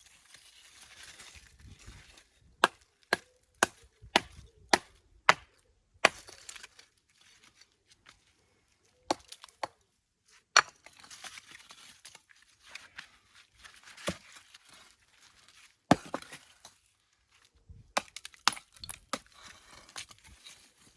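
Sharp knocks of a hammer striking stone, a run of about seven evenly spaced strikes followed by scattered single knocks, as stones are shaped for the coping along the top of a stone wall.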